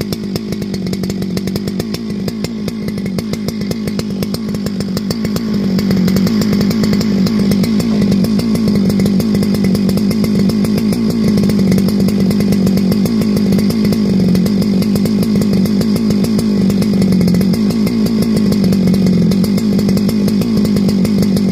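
Ported Husqvarna 395 XP two-stroke chainsaw with advanced ignition timing, idling untouched on the ground while still warming up after a cold start. Its steady running note grows louder about five seconds in, then holds.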